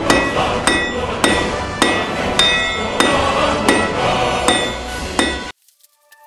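Hand hammer striking hot steel on an anvil at a steady pace, a little under two blows a second, about ten blows in all, each one ringing. The hammering cuts off suddenly about five and a half seconds in.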